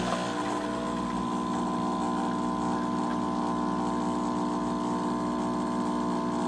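Saeco Exprelia Evo superautomatic espresso machine brewing espresso into a glass of steamed milk, its pump giving a steady hum.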